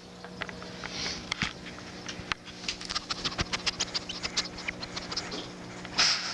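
Shih Tzu puppy sniffing and nosing right at the microphone: a breathy puff about a second in and again near the end, with a run of quick little clicks and scratches in between.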